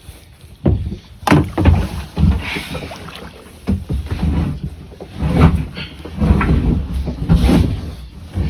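Kayak being paddled: irregular paddle strokes about once a second, each a low thump with a splash of water.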